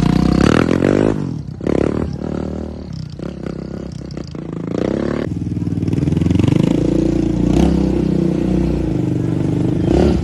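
Yamaha Raptor sport quad's single-cylinder engine revving as it is ridden along the road, its pitch rising and falling several times. It drops quieter a second or so in and grows louder again from about five seconds in.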